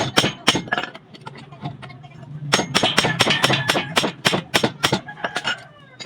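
Rapid, even hammer blows on metal, about four a second, each with a short clinking ring. There are two runs with a brief pause between them.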